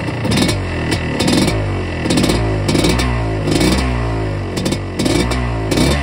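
1977 Yamaha IT250's single-cylinder two-stroke engine being blipped repeatedly, its revs rising and falling back a little more than once a second. It runs on a freshly rebuilt top end with no piston slap.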